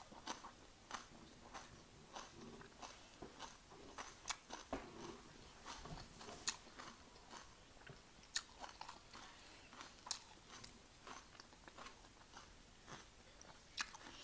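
Close chewing and crunching of crispy bánh xèo and raw vegetables, with irregular sharp crunches throughout.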